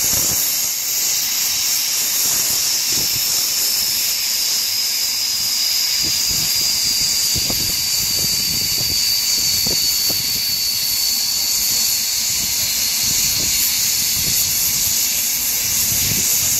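Single Fairlie narrow-gauge steam locomotive blowing steam from its open cylinder drain cocks as it tries to start a slate train: a loud, steady hiss with a high whistling tone in it that slowly falls in pitch.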